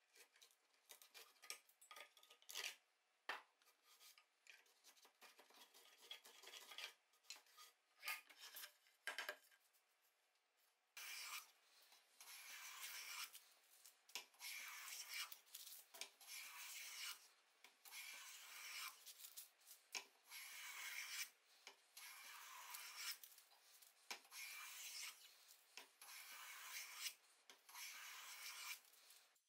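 Repeated scraping strokes of a hand tool along the edge of a wooden rail, about one stroke a second from about eleven seconds in, after a stretch of scattered light taps and short scrapes.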